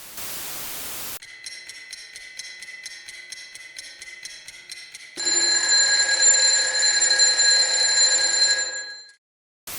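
Hiss for about a second, then an electronic ringing: a fast pulsing ring of about five pulses a second, followed by a louder steady ring of several tones that cuts off suddenly.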